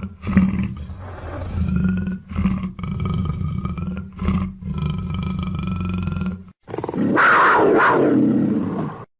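Black panther (a black-coated big cat) giving a series of low, held growling calls broken by short pauses. After a brief break about two-thirds of the way through comes a louder, harsher roar that cuts off just before the end.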